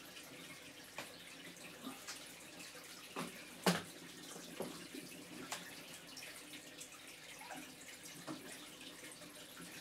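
Water trickling in a reef aquarium: a steady hiss with irregular drips and bubbly plops, the loudest just before four seconds in.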